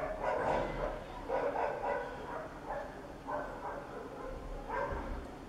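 An animal, most like a dog, giving a run of short high-pitched whines and yips, about one a second.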